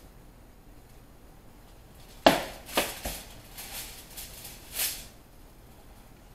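A metal sheet pan clatters down onto a glass-top stove about two seconds in, followed by a couple of lighter knocks. Then come a few seconds of crinkling as the aluminium foil cover is pulled off.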